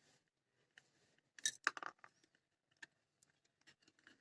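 Small clicks and scrapes of a screwdriver and loose screws while the nuts and bolts holding the amplifier ICs are undone, with a quick cluster of clicks about a second and a half in and a single tick a little later.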